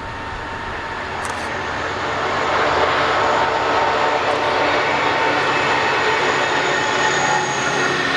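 A MaK G1206 diesel-hydraulic locomotive approaches and passes with a train of empty grain hopper wagons. The engine and rolling noise swell over the first three seconds, then hold steady as the wagons run by.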